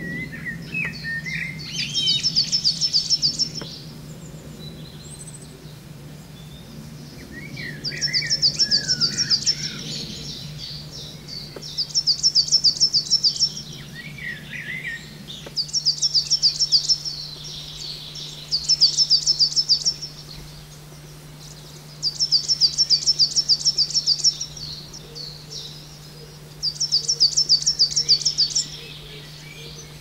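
Coal tit singing: seven short phrases of rapid, high, repeated notes, a few seconds apart. Softer, lower chirps fall between the first few phrases, over a steady low hum.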